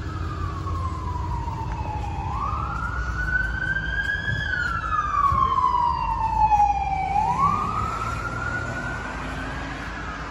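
Emergency-vehicle siren wailing, its pitch sliding slowly down and then sweeping back up about every five seconds, loudest near the middle, over a low traffic rumble.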